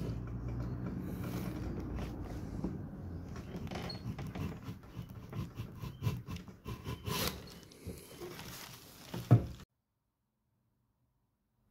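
Woodcarving hand tools being worked and handled over wood shavings: irregular clicks, scrapes and knocks with a low rumble at first. A sharp knock a little after nine seconds, then the sound cuts off suddenly.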